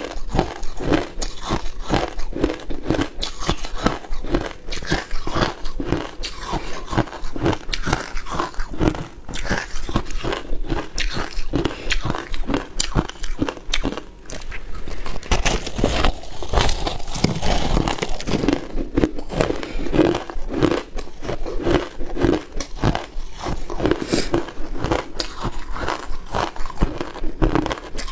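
Close-miked biting and chewing of hard crushed ice: a fast, irregular series of sharp crunches and cracks as the ice breaks between the teeth.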